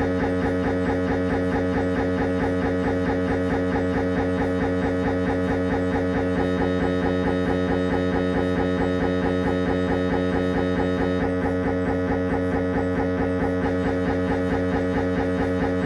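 Siemens Magnetom Avanto MRI scanner's gradient coils buzzing through a head-scan sequence: a loud, steady pitched drone that pulses rapidly and evenly. A fainter high whine joins it for a few seconds in the middle.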